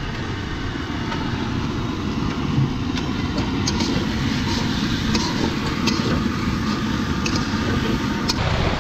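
Fishing boat's engine running steadily, with several light clinks of a metal spatula against the cooking pot.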